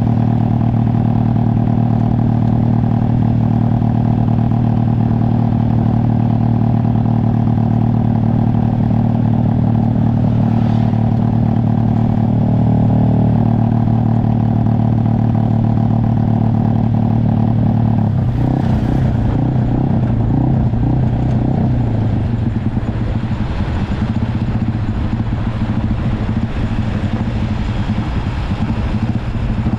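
Motorcycle engine running under way, a steady even note that shifts and turns rougher about eighteen seconds in.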